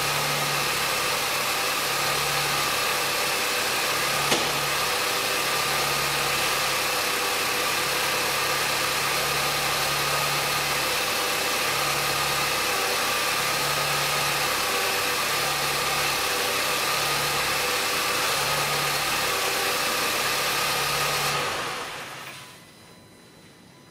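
Audi 1.8 TFSI (CJEB) turbocharged four-cylinder petrol engine running steadily, just after a new timing chain kit and iridium spark plugs, with one brief click about four seconds in. The sound dies away near the end.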